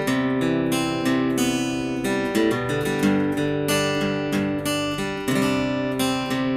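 Ibanez AEL40SE acoustic-electric guitar, with a solid spruce top and flamed sycamore back and sides, playing strummed chords with picked notes ringing between them. The chords change every second or two.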